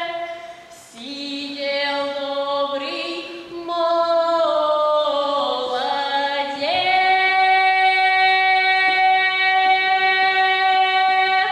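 A girl singing a Russian folk song solo and unaccompanied, moving through a few sustained notes and ending on one long held note: the closing phrase of the song.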